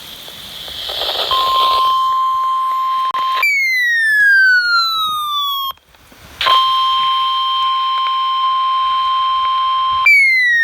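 Electronic emergency alert attention signal. A steady high beep is held for a few seconds, then a tone glides downward for about two seconds. After a brief gap the steady beep and the falling glide repeat. A hissing swell comes first.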